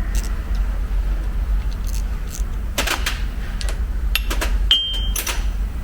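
Scattered metallic clicks and clinks of hand tools on a bolt threaded into a seized brake caliper piston as it is drawn out, with a short metallic ring about five seconds in. A steady low hum runs underneath.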